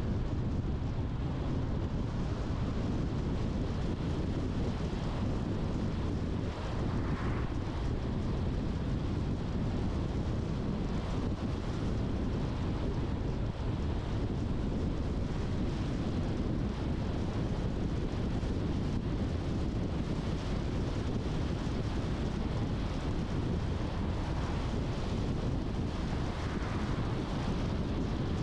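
Steady road noise of a car being driven: low tyre rumble and engine hum, with faint brief swells about seven seconds in and near the end.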